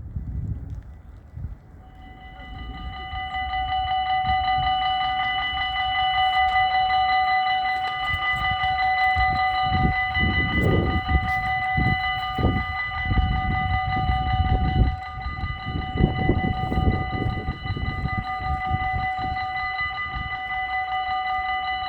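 Dutch level-crossing warning bells start ringing about two seconds in, a steady high-pitched ringing tone that holds on, over an uneven low rumble.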